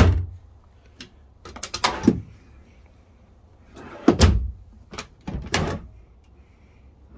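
Wooden dresser drawers and a cabinet door in a camper bedroom being pulled open and pushed shut. Each stroke ends in a sharp knock: a loud one at the start, a few around two seconds in, another loud one about four seconds in, and two more shortly after.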